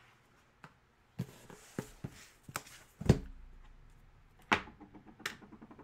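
Cardboard flat-rate shipping box being handled and moved on a desk: a run of knocks, scuffs and thumps, the loudest thump about three seconds in and two sharp knocks near the end.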